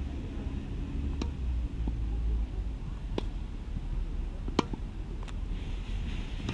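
A tennis ball knocking sharply several times as it bounces on the hard court and is hit by the racket, the loudest knock about four and a half seconds in, over a steady low rumble.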